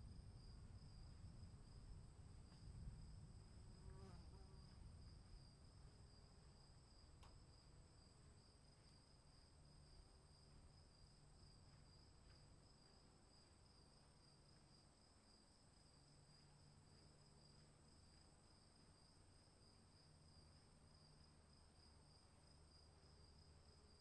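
Faint, steady trilling of crickets. A low rumble of distant thunder dies away over the first several seconds.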